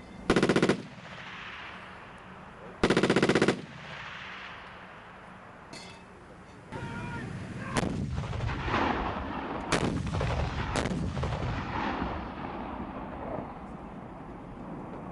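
Live firing from Panhard AML-90 armoured cars: two short bursts of machine-gun fire, one near the start and one about three seconds in. From about seven seconds there is a sustained rumbling din broken by several sharp reports.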